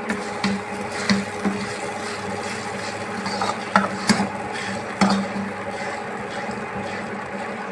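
A steady mechanical hum with a few scattered knocks and scrapes, the loudest about four and five seconds in.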